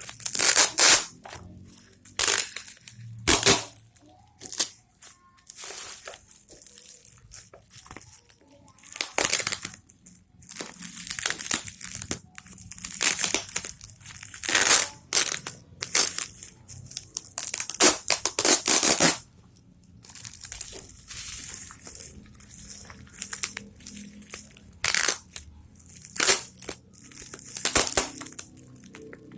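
Plastic packaging crinkling and rustling in irregular bursts as items are unwrapped and handled.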